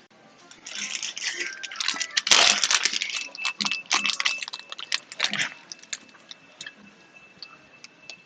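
Eating sounds picked up close by an AirPods Pro microphone: crackly chewing and mouth noises, densest in the first three seconds, then thinning to scattered clicks by about the middle.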